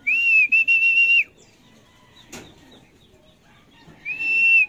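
Two long, loud whistles, each a high steady note with a slight warble and a few short breaks. The first fills the opening second; the second starts near the end. This is a pigeon fancier whistling to call circling racing pigeons down to the loft. A single sharp click comes about halfway between them.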